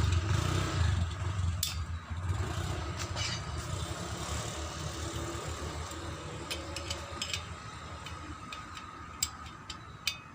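A motor engine running with a low rumble that fades steadily over several seconds, as if moving away. Several short sharp clicks, like tools or metal parts knocking, come in the second half.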